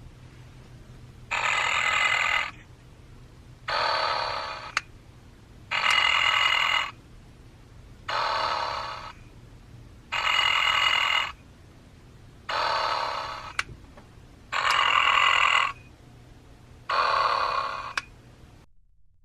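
Applause animated Snoring Snoopy plush toy playing its electronic snoring sounds: eight snores, each a little over a second long, about one every two seconds. A steady low hum from its back-raising mechanism runs underneath. Snores and hum cut off together near the end as the toy stops.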